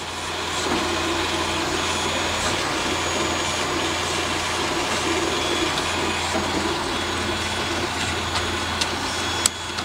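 Hornby Terrier OO gauge model steam locomotive's small electric motor whirring as it runs along the track, building up over the first second and then running steadily, with a few sharp clicks near the end.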